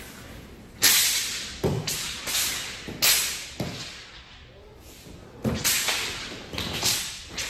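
Shaolin dao broadsword with a red sash swung through the air in a form: a series of sharp swishes, several quick ones near the start and a cluster near the end, with a few dull thuds of bare feet landing on the mat among them.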